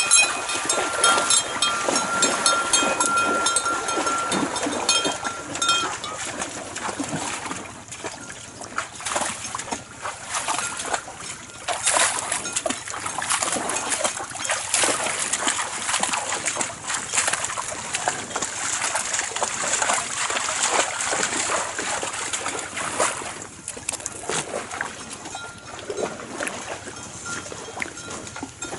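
N'Guni cattle wading and drinking in shallow lake water: irregular splashing and sloshing as their legs and muzzles move in the water. High, steady ringing notes sound over it and stop about six seconds in.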